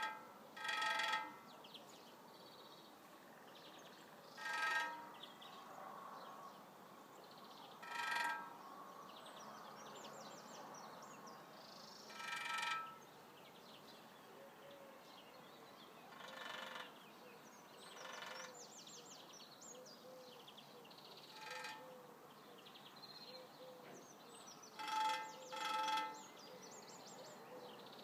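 A woodpecker drumming on an aluminium street-lamp cover: short, rapid drum rolls that ring with a metallic pitch, repeated every three to four seconds, with two close together near the end. The drumming is a signal to other woodpeckers.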